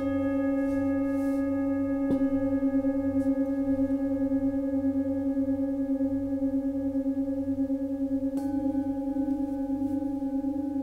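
Tibetan singing bowls struck three times, at the start, about two seconds in and near the end. Each stroke leaves a long, steady ringing tone with a slow pulsing wobble.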